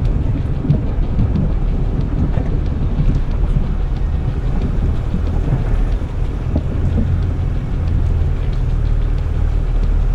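Mitsubishi Pajero's engine running low and steady as the 4x4 wades through deep floodwater, with a steady wash of water against the vehicle.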